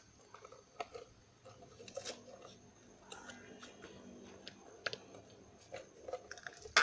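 Soft, sticky slime being handled and pressed into a container: scattered quiet squelches and small clicks, with one louder squelch right at the end.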